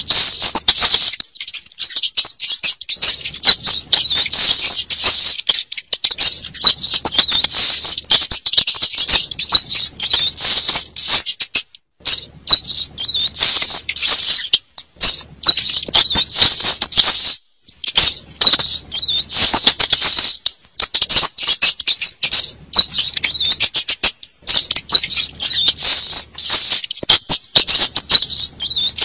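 Rats squeaking and chittering rapidly and almost without pause in high-pitched, dense squeaks, broken by a few short gaps; a recorded rat call played to lure rats.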